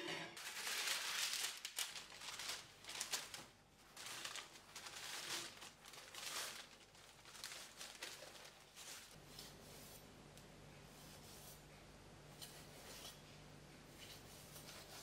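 Baking paper rustling and crinkling as it is handled, in a run of short bursts over the first seven seconds or so. It then settles to a faint low hum with only a few small rustles.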